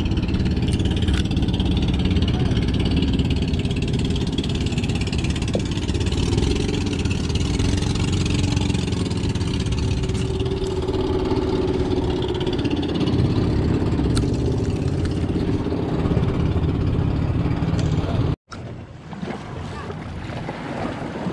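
Engines of small motorized fishing boats running steadily, a low drone with several overlapping tones. It breaks off abruptly near the end, leaving a much quieter background.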